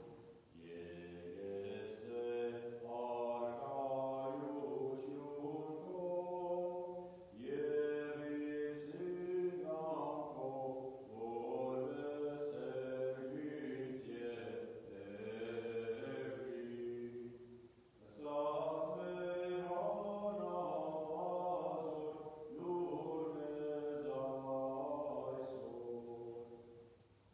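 Armenian liturgical chant sung in long, slow, melismatic phrases, with brief breaks about 7.5 and 18 seconds in.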